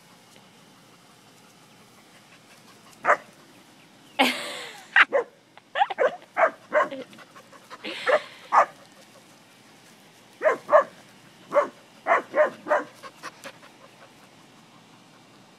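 English springer spaniel barking at cattle: short, sharp barks in irregular bouts, starting about three seconds in, with two longer, rougher sounds about four and eight seconds in.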